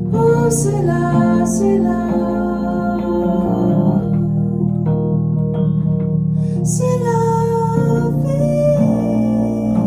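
A woman singing a slow song over her own piano accompaniment, with sustained chords underneath; sung phrases come near the start and again about seven seconds in.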